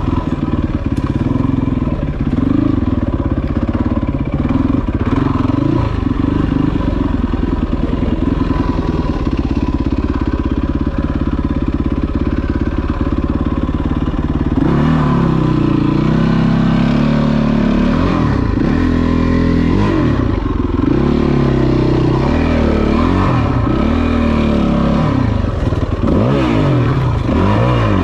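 Yamaha WR450F's single-cylinder four-stroke engine running at a low, fairly steady speed. From about halfway through, the rider works the throttle on and off over rocky ground, and the engine note rises and falls every second or so.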